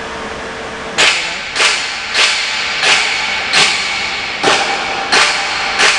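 Construction machinery beating out a regular series of sharp strikes, about three every two seconds, each fading in a hiss. The strikes start about a second in, over a steady machine noise.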